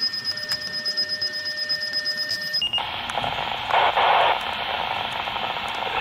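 Fire pager receiving a dispatch alert: a steady alert tone for about two and a half seconds, a brief higher beep, then radio static hiss. The static comes from the pager being on the wrong channel.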